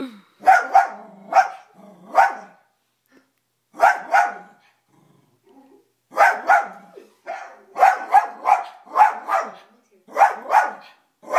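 Dachshund barking over and over: short barks in quick bursts of two to five, with brief pauses between the bursts.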